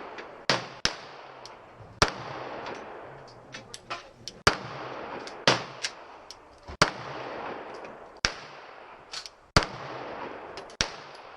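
Gunshots at a shooting range: about nine loud, sharp reports at irregular intervals, each with a brief echoing tail, and fainter shots from other shooters in between.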